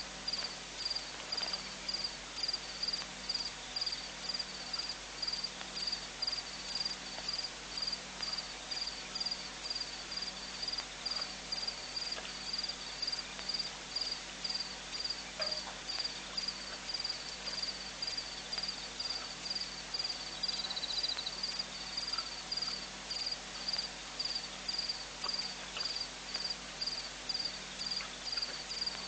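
A cricket chirping steadily, about two high chirps a second, with a brief second insect trill about two-thirds of the way through.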